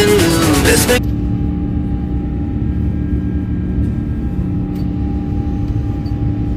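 A song with singing cuts off abruptly about a second in, leaving the steady low rumble of an Airbus A350-900's jet engines at takeoff power, with a few steady tones over it.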